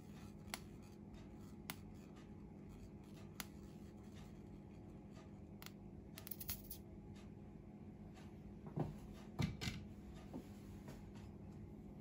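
Honey trickling in a thin stream into a copper saucepan, barely audible over a steady low room hum. There are a few faint clicks, and a short cluster of louder soft knocks comes about nine seconds in.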